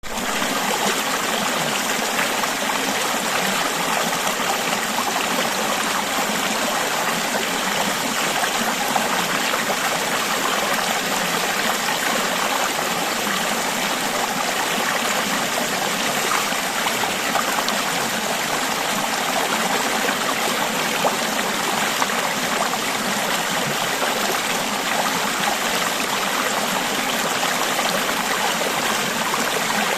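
A river stream flowing steadily, a continuous babbling and trickling of water over rocks.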